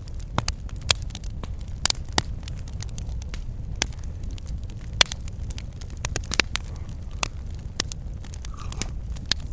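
Wood campfire crackling, with irregular sharp pops and snaps over a low steady rumble; the loudest snaps come about one, two and five seconds in.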